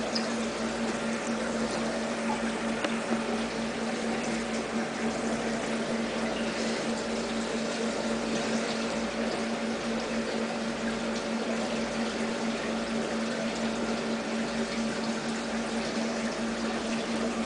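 A small water pump humming steadily, with water moving.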